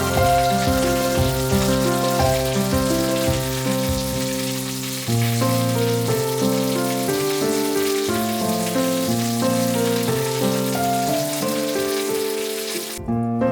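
Chicken thighs frying in oil in a pan, a steady sizzling hiss that cuts off abruptly near the end, under gentle background music with piano-like notes.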